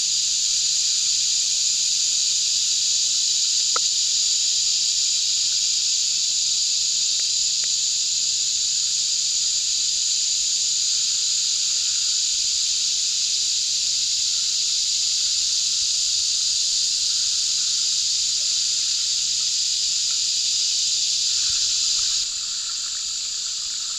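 Steady high-pitched insect chorus, a continuous hiss-like buzz that drops a little in level near the end.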